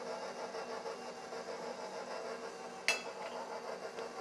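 Electric stand mixer running steadily, beating frosting as powdered sugar is added. One sharp click about three seconds in.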